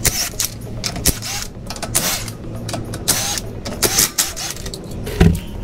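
Steel wheel nuts being undone on a Land Cruiser's rear wheel with a socket wrench and spun off by hand: irregular metal clicks and scrapes, with a few short squeaks.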